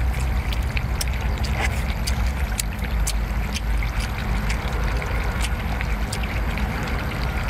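Steady low rumble of wind on the microphone, with scattered sharp wet clicks of someone biting, sucking and chewing seafood.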